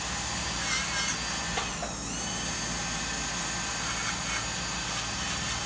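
Dental straight handpiece whirring steadily as its bur works on the front teeth, with thin high tones over the noise; its pitch dips briefly and recovers about two seconds in.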